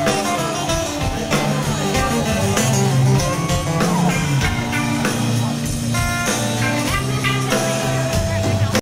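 Rock band playing live, heard from within the audience: electric guitars over bass and drums.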